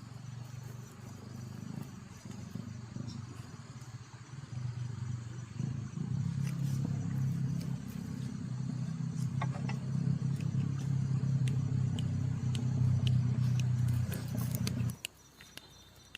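A motor engine running with a low hum, growing louder and then stopping abruptly about fifteen seconds in.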